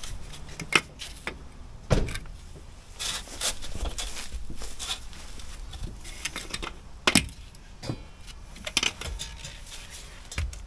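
An aluminium spirit level and hand tools knocking and scraping against a brick and concrete step, with a few sharp knocks and stretches of scraping between them.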